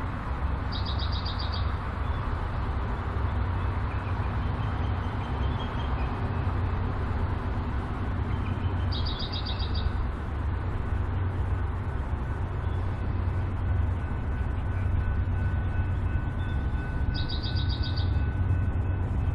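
BNSF diesel-electric freight locomotive approaching under power, its engine a steady low rumble. A bird gives a short, rapid high trill three times, about eight seconds apart.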